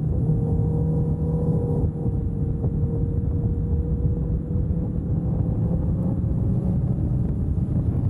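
Motorcycle engine running at a steady cruise, its pitch easing slightly and then slowly rising, under heavy wind rumble on a helmet-mounted microphone.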